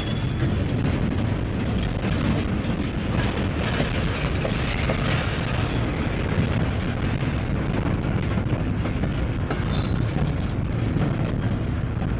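Freight train of container cars rolling past close by: a steady rumble and rattle of wheels on rail with many small clicks. A brief high squeal sounds at the start and again about ten seconds in.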